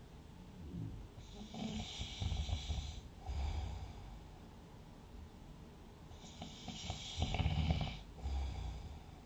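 A sleeping person snoring: two slow breaths, each a low snore with a breathy hiss. The second, about three-quarters of the way through, is the louder.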